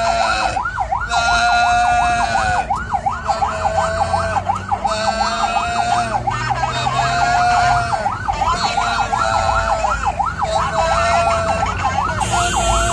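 Electronic emergency-vehicle siren sounding continuously, switching about every two seconds between a quick swooping wail and a rapid warble, over the low rumble of the moving vehicle.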